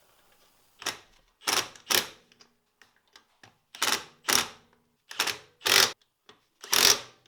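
Impact wrench run in short bursts, about eight in all and several in quick pairs, driving in wheel bolts.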